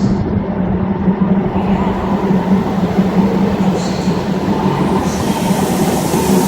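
A train running on the rails: a steady rumble with a constant low hum, and a hiss that builds in the last second or so.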